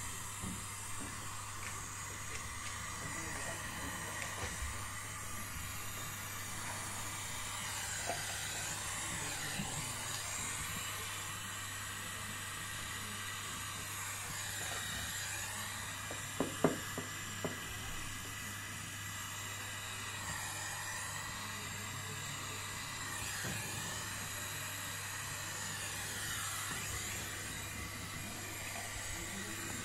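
Brazing torch flame hissing steadily on the pipe joints of a replaced refrigerator compressor, with a steady low hum underneath and a few short clicks about halfway through.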